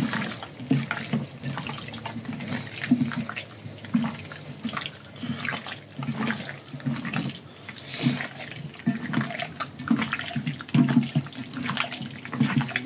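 Hands squeezing and massaging raw chicken wings in a thick, saucy char siu marinade: irregular wet squelching, one squeeze after another.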